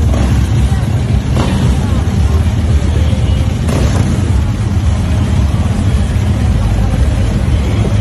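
Flat-track motorcycle engine running steadily, a deep continuous rumble, with voices of people around it.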